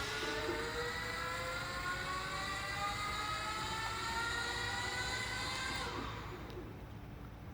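Brushless electric drive motor of a remote-control wheeled chassis whining, its pitch rising steadily as it speeds up. It cuts off about six seconds in.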